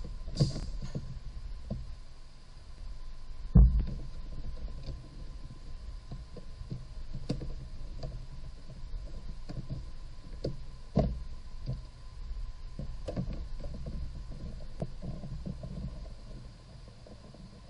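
Plastic knocks and clicks from the car's windshield cowl panel being handled and pressed down into place, with one sharp knock about three and a half seconds in and another around eleven seconds, over a low steady rumble.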